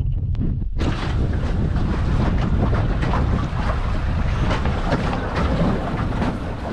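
Strong wind buffeting the microphone on a small boat trolling through rough sea, over a steady low rumble of the motor and water.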